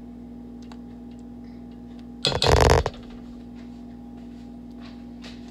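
Steady low hum of kitchen room tone, broken once about two and a half seconds in by a loud half-second bump.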